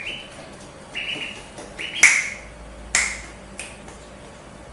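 Two sharp finger snaps about a second apart, the first the louder, while a duckling peeps in short, high calls.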